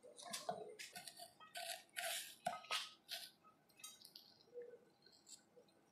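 Faint, scattered taps and clicks of a small kitchen knife cutting green chillies on a wooden chopping board.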